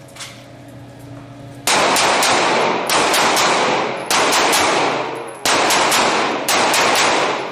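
Rapid gunfire in several long, loud volleys, starting a little under two seconds in, the shots running together with their echo.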